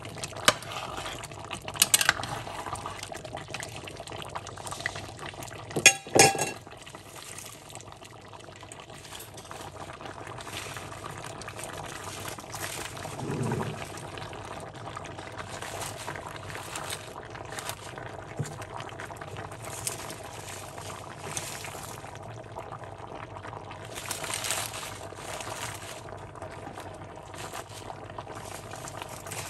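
Thick tomato stew bubbling as it simmers in a cast-iron Dutch oven, with a spatula knocking against the pot a few times in the first several seconds while it is stirred.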